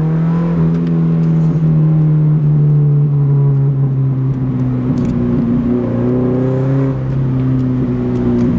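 Subaru BRZ's flat-four engine and exhaust, heard from inside the cabin while driving: a steady, loud drone at fairly even revs. The exhaust leak has just been repaired at a muffler shop, and the system now sounds louder.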